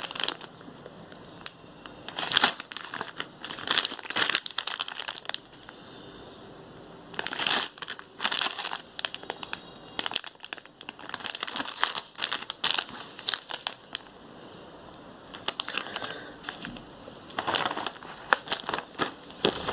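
Plastic candy packets crinkling and rustling as they are handled and shifted about, in irregular bursts with short quiet pauses between them.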